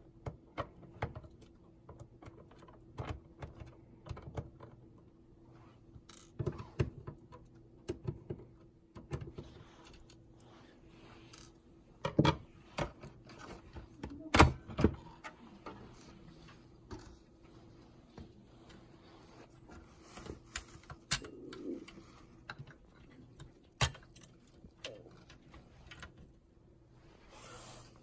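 Irregular clicks, taps and small metal clinks of hands handling a POS terminal's casing, screws and parts during a motherboard replacement, with a couple of louder knocks about twelve and fourteen seconds in. A faint steady hum runs underneath.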